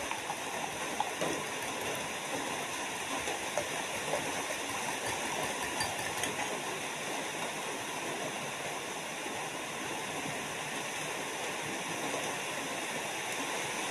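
A steady rushing hiss throughout, with a few faint clicks from a metal spoon scooping soft soursop flesh.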